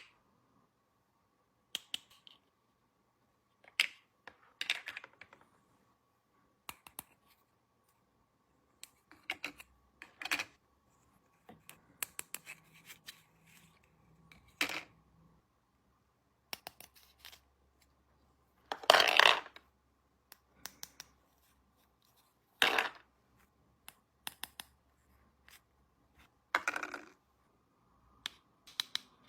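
Miniature plastic toy kitchen pieces and their packaging being handled: scattered light clicks, taps and short scrapes with quiet gaps, and one longer rustle about two-thirds of the way through.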